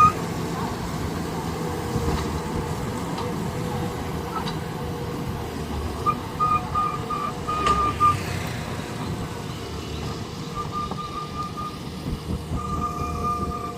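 Heavy machinery running with a steady low engine rumble, while a reversing or travel alarm beeps in quick runs of short, high beeps, starting about six seconds in and again near the end.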